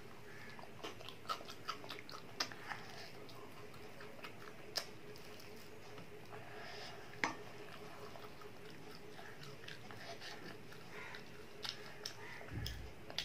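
A child chewing and biting fried chicken, with scattered short crisp clicks and mouth noises over a faint steady hum, and a dull low bump near the end.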